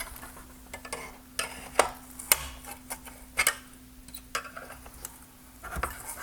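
Irregular clicks and taps of tools and hard plastic parts as clips inside a halogen headlight housing are worked loose. A faint steady hum runs underneath.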